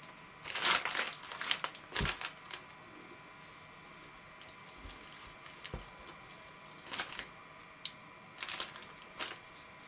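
Plastic packaging crinkling in short bursts as a knitted balaclava is handled, with two soft thumps about two and six seconds in.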